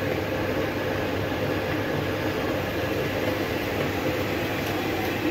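Metal lathe running steadily with an even mechanical hum.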